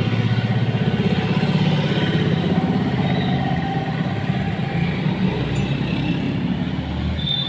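An engine running steadily at a low, even pitch. A high, steady whine starts near the end.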